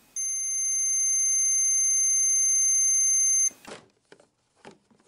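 Digital multimeter's continuity buzzer giving one steady high-pitched beep for about three seconds, then cutting off abruptly. The probes are on the top test points of an automotive blade fuse, and the beep means the circuit is closed: the fuse is intact and serviceable. A few faint clicks follow near the end.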